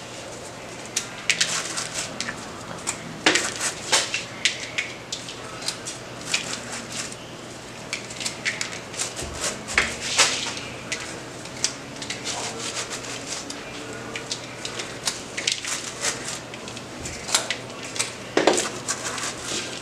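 Hands rustling through a flower arrangement's rosemary, fern and rose stems, an irregular scatter of sharp crackles and snaps, over a low steady hum.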